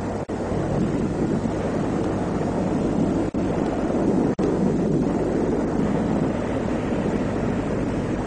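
Steady low rumbling noise, like a battle or engine soundtrack, with three sudden brief dropouts: one near the start and two about a second apart in the middle.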